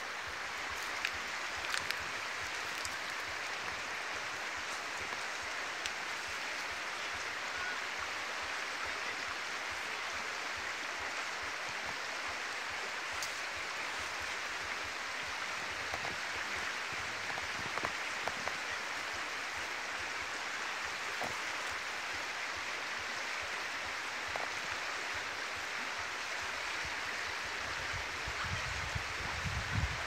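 Steady rushing of a mountain stream, with a few faint clicks over it. A low rumble rises near the end.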